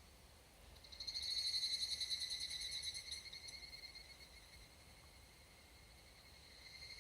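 Higurashi (evening cicada, Tanna japonensis) calling: one rapid, trilling call swells up about a second in, holds loud for a couple of seconds, then fades away, with fainter higurashi singing steadily behind. Another call starts up near the end.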